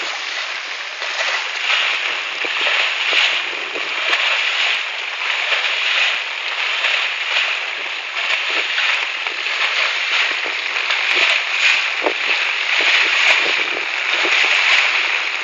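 Steady rush of floodwater with scattered small splashes and sloshes of people moving through it, in a yard flooded by rain that one storm drain cannot carry away.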